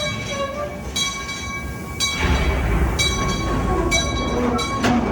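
Calico Mine Ride train cars rolling along the track: a steady high-pitched squeal from the wheels that breaks off and returns every second or so, over a low rumble that grows louder about two seconds in.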